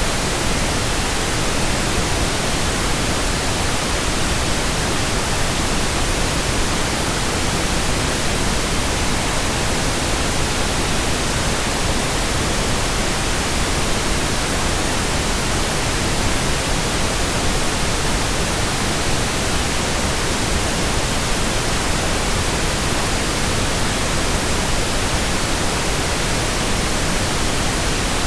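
Steady, unchanging electronic white noise: an even hiss spread across all pitches, with no breaks or changes.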